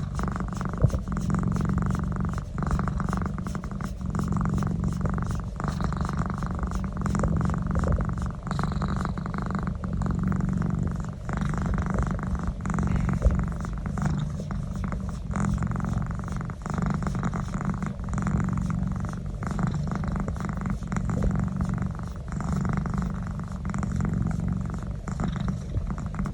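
Domestic cat purring while having its neck massaged: a low, continuous rumble that swells and eases in regular cycles of about a second and a half, with each breath in and out.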